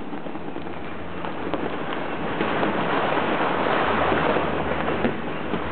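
Fireworks and firecrackers going off all over the city at once, far enough away to merge into a steady crackling wash, with a sharper pop about five seconds in.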